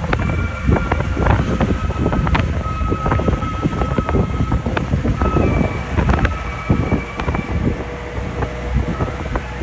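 Moving vehicle on a road: a steady low rumble of engine and road, with wind buffeting the microphone and frequent rattling knocks.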